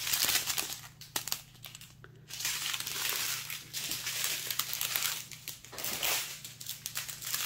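Small plastic zip-lock bags of diamond painting drills crinkling as they are handled and laid out, with a quieter lull at about one to two seconds in.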